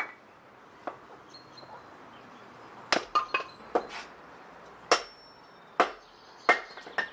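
Hatchet splitting firewood on a log chopping block: about ten sharp, irregular knocks, some with a brief ringing tail.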